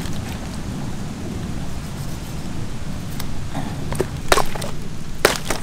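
Raw eagle ray carcass being pulled at and cut with a knife on a bed of coconut palm fronds, over a steady low rumble: a few sharp crackles and short rustles from about four seconds in.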